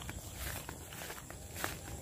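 Footsteps walking along a grassy dirt path, about two steps a second, over a low rumble.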